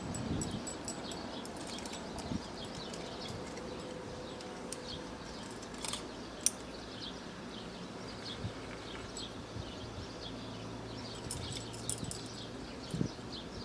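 Small birds chirping: many short, high chirps come thick and fast. Two sharp clicks land close together about six seconds in.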